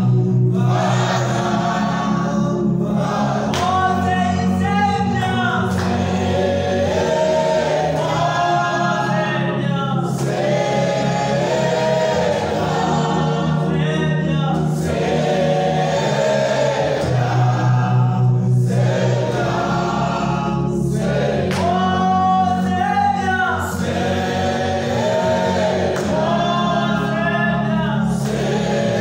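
A choir singing a gospel worship song over held low accompanying notes that change every couple of seconds.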